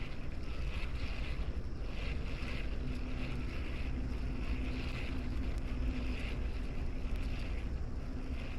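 Steady rush of wind buffeting the microphone, with the flow of the river beneath it.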